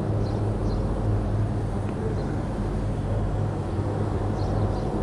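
A steady low mechanical hum, like an engine or motor running, over a constant background noise. A few faint high chirps come through about a third of a second in and again near the end.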